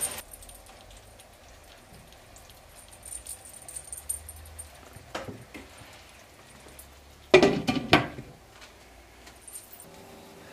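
Scattered light clinks, then a sharp double clatter about seven and a half seconds in as a glass pot lid is set down onto the rim of a cooking pot.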